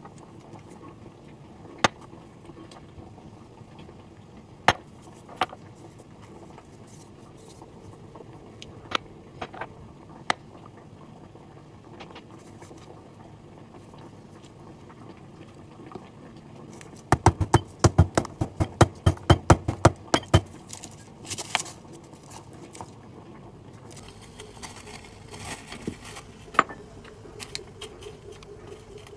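Scattered sharp taps and knocks on a wooden cutting board while a raw beef steak is seasoned and pressed by hand, with a quick run of thumps, about five or six a second, for a few seconds past the middle as the meat is patted. Near the end comes a faint hiss from a glass pot of vegetables on a gas stove.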